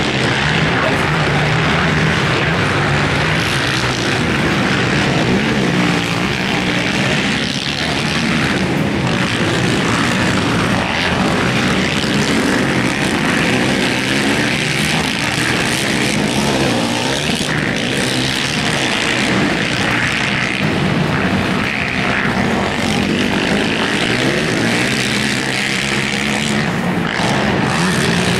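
Several racing ATV (quad) engines running hard on a motocross track, a continuous mixed drone that rises and falls in pitch as the riders rev, shift and back off.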